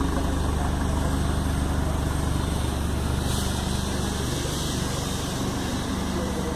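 Mercedes-Benz SLK engine idling through an aftermarket Hurricane Evolution exhaust: a steady, low exhaust rumble with no revving.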